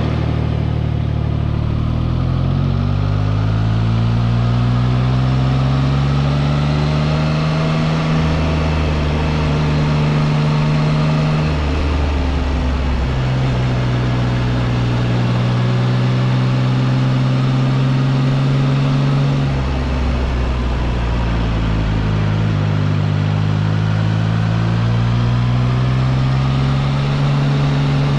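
Triumph Trident 660 inline three-cylinder engine heard from the rider's seat while riding, its note rising over the first few seconds and then holding steady. The note breaks and changes twice, about 12 and 20 seconds in, over a steady rush of wind and road noise.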